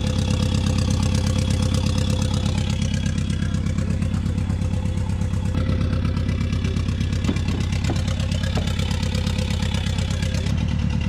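Turbocharged 2-litre Ecotec four-cylinder running steadily at a constant low speed on a chassis dyno, with two bad ignition coils.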